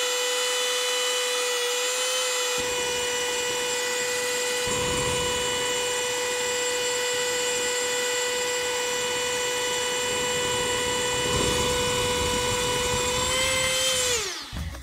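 A powerful electric motor spins a 3D-printed PLA centrifugal fan at a steady, high whine, while propane burns in the acrylic tube, adding a low rushing noise that starts a couple of seconds in. Near the end the whine climbs slightly, then drops away quickly as the motor spins down.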